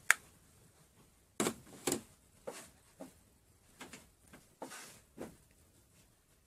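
A sharp click right at the start, then a string of short, irregular rustles and soft bumps of bedding and pillows being moved about as someone gets out of bed and pulls the duvet over.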